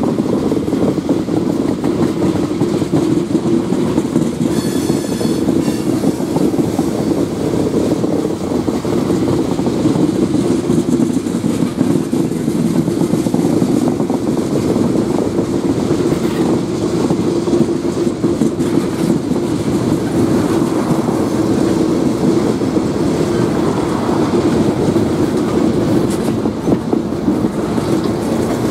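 Freight train of tank cars crawling past at very low speed: a steady, loud rumble of steel wheels and couplers on the rails, with a brief high-pitched squeal about five seconds in.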